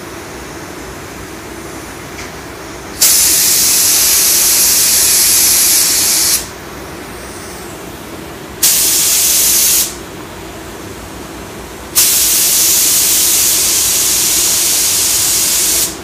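Iwata WS-400 spray gun hissing as its trigger is pulled three times: a long pass of about three seconds, a short one-second burst, then another long pass of about four seconds. Each burst starts and stops sharply. The gun is spraying test patterns with its fan control choked in a few turns, and the pattern is still very wide.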